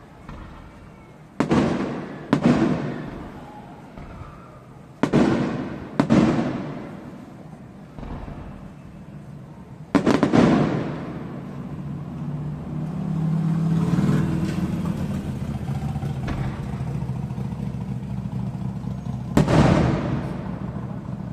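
Aerial firework shells bursting: six loud bangs at uneven intervals, each trailing off in a long rolling echo. Between the later bursts a steady low hum runs underneath.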